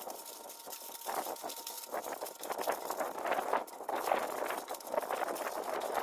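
A double layer of aluminium foil crinkling and rustling unevenly as it is folded and pressed tightly around a joint of meat.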